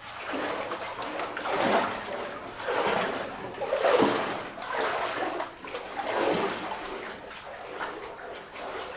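Boots wading through water in a flooded mine tunnel, a slosh and splash with each step, about one a second.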